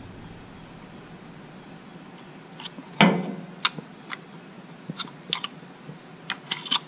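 Small metal clicks and taps in an automotive distributor as a condenser is worked into its bracket with a hand tool. One sharper click comes about three seconds in, then a run of light, scattered clicks.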